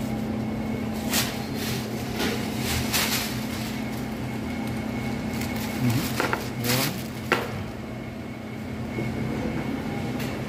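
Crinkling of a plastic carry bag as fried-chicken buckets are packed into it, in short bursts about a second in and again around six to seven seconds in, over a steady low mechanical hum.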